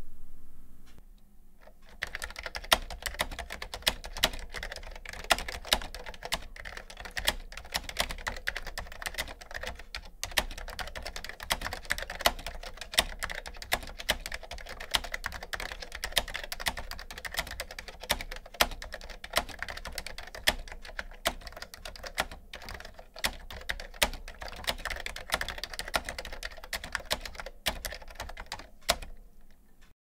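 Typing on a vintage Cherry KFN3 keyboard with Cherry's solid-state capacitive foam-and-foil switches. A dense, continuous run of key clacks starts about two seconds in and breaks off briefly a few times.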